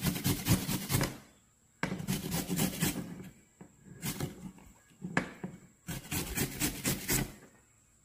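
A carrot being grated on a flat stainless-steel hand grater pressed against a plastic cutting board: rapid rasping strokes in several short runs with brief pauses between.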